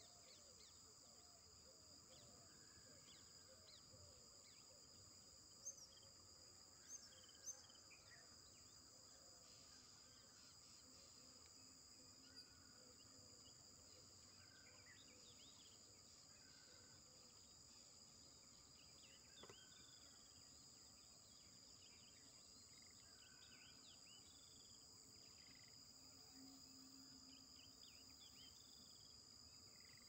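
Very faint outdoor ambience: a steady high insect trill, likely crickets, with scattered small bird chirps and a few sharper high chirps about six to eight seconds in.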